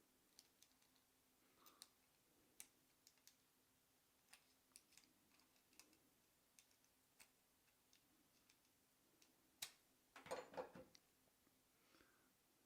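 Faint, scattered clicks and ticks of small metal parts of a vintage Simplex rear derailleur being handled during reassembly, with a short, louder cluster of clicking and rattling about ten seconds in.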